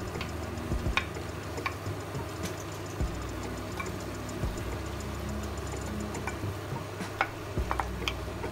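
Wooden spoon stirring grated carrots into beef in a metal pot, with irregular knocks and taps of the spoon against the pot and a plastic container, over a steady low hum.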